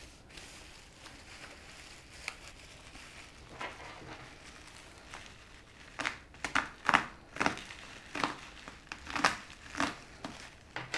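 Packaging being handled and unwrapped: crinkling and rustling, faint at first, then a string of louder short crackly bursts over the last five seconds.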